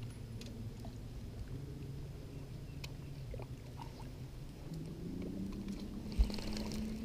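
Low, steady hum of a bow-mounted electric trolling motor, its pitch rising a little near the end. A single sharp thump comes about six seconds in.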